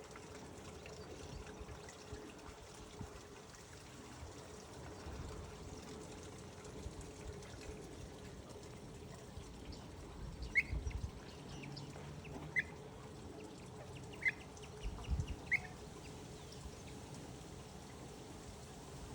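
Pied avocet giving four short high calls, about two seconds apart, over a steady wash of water.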